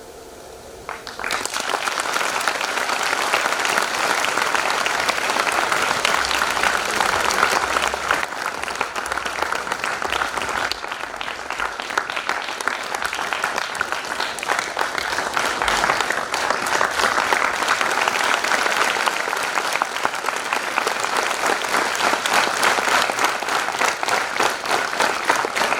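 Audience applauding steadily, starting about a second in.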